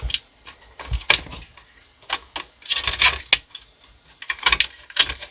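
Clicks, knocks and scraping of metal and plastic parts being handled inside a small-form-factor PC case as a part is worked loose, with about seven sharp clicks spread irregularly.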